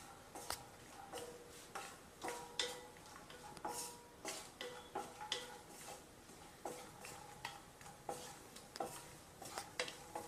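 Wooden spatula stirring cashew nuts frying in ghee in a nonstick kadai, knocking and scraping against the pan in an uneven run of clicks, roughly two a second. Many knocks leave a short ring from the pan.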